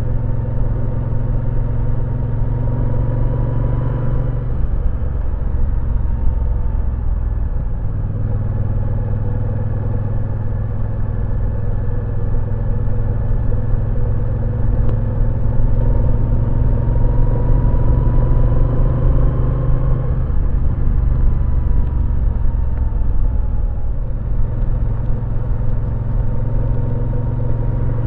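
Moto Guzzi V9 Roamer's 853 cc air-cooled V-twin running under way, heard from the rider's seat. The engine note climbs in pitch over the first four seconds and drops suddenly, climbs again through the middle, then falls away slowly a few seconds later.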